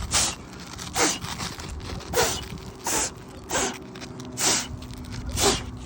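Seven short puffs of air blown across asphalt roof shingles, about one a second, clearing loose granules off the surface so the granule loss and damage show.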